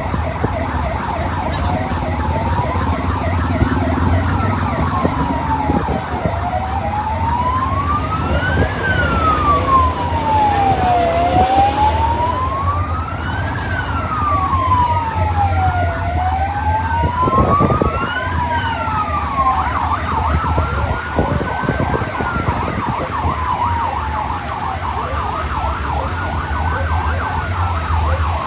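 Vehicle siren wailing, its pitch rising and falling slowly about every two and a half seconds; about halfway through a second siren joins, sweeping out of step with the first. A steady low engine rumble runs underneath.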